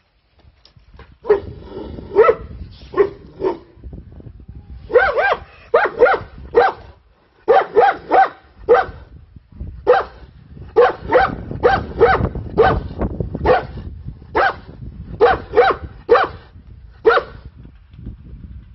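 Anatolian shepherd dog barking over and over in quick runs of two to four barks, stopping near the end.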